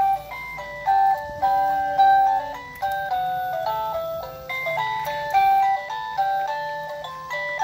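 A baby walker's electronic play tray playing a simple tinny melody, one short electronic note after another.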